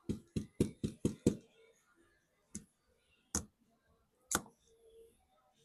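Sharp clicks of a small tool picking and chipping at the shattered back glass of an iPhone 15: a quick run of about six clicks in the first second and a half, then three single clicks about a second apart.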